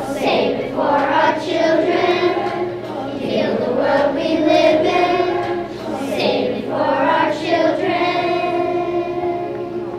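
A group of children singing a song together, with several long held notes.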